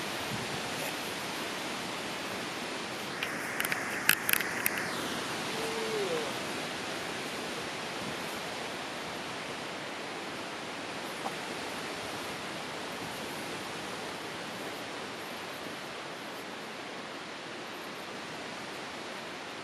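Steady, even rushing outdoor ambience with no single clear source. About four seconds in, a brief cluster of sharp clicks stands out.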